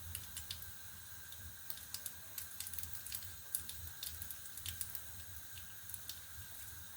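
Faint wet squishing and small irregular clicks as hands press a sticky egg-and-breadcrumb coating onto raw sausage meat.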